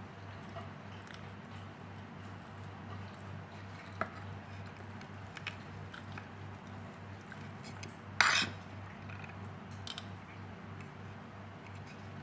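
Cutlery clinking and scraping against a plate now and then during eating, with one louder clatter about eight seconds in, over a steady low hum.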